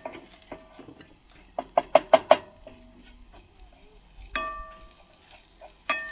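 Wooden spatula knocking against a metal frying pan while stirring, each knock leaving a brief ring from the pan. A quick run of about five knocks comes around two seconds in, then single knocks come halfway through and near the end.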